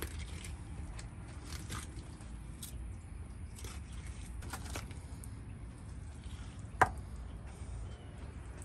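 Fillet knife cutting and scraping along an alligator gar's back, slicing the backstrap meat free from the hard scaled hide, in soft intermittent strokes with one sharp knock near the end, over a steady low rumble.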